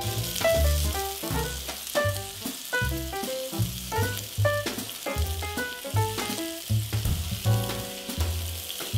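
Sauce-basted pork skewers sizzling on a hot grill pan: a steady hiss, over background jazz music.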